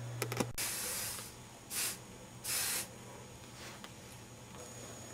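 Aerosol spray can sprayed in three bursts, the first the longest, after a few quick clicks.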